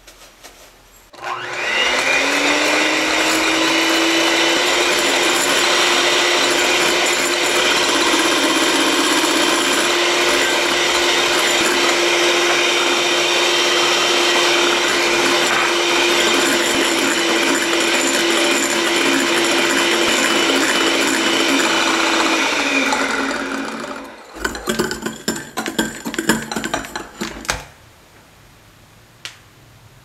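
An electric hand mixer starts about a second in. Its motor whines up to speed and then runs steadily as the beaters whip egg whites and sugar into meringue. Near the end it winds down, and a few seconds of irregular knocks and rattles follow.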